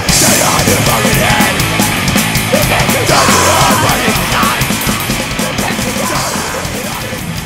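Loud metal punk song played by a full band, dense and unbroken.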